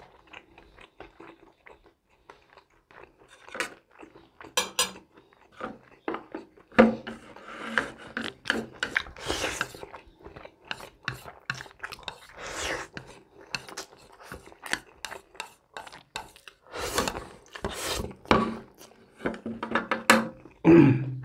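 A person eating spaghetti with chopsticks: chewing and slurping noodles, with chopsticks clicking against a ceramic plate.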